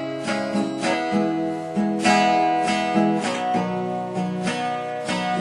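Acoustic guitar strumming chords in a steady rhythm, about two strokes a second.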